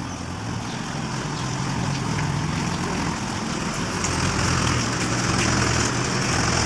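Minibus engine idling, a steady hum under a broad rush of noise that grows louder as the bus is approached and boarded.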